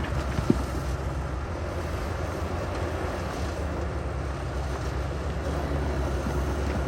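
Diesel engine of heavy earthmoving equipment running steadily with a deep low rumble; a single sharp knock about half a second in.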